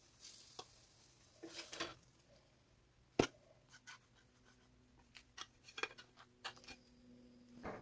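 Spatula clicking and scraping against a ceramic plate and frying pan as pieces of egg-filled toast are lifted off and set on the plate: scattered light taps, the sharpest about three seconds in.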